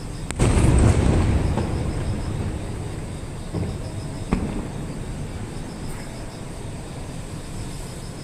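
Aerial firework shell bursting with a loud boom about half a second in, its rumble dying away over about two seconds, followed by two fainter pops around three and a half and four seconds in.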